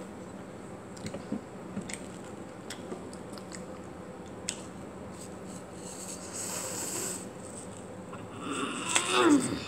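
Close-up chewing of a crisp apple: scattered crunchy bites and mouth clicks, and a noisy breath through the nose about two-thirds of the way in. Near the end comes the loudest sound, a short vocal noise falling in pitch.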